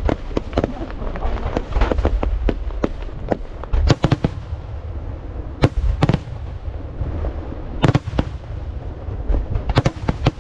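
Aerial fireworks shells launching and bursting: many sharp bangs in quick, irregular succession over a continuous low rumble.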